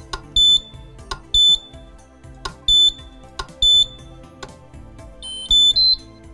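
Electric drive unit of a Häfele Free Swing E lift-up fitting beeping as its programming button is pressed to select the Reset menu item. There are four short high beeps about a second apart, then a quick rising run of tones near the end acknowledging the selection.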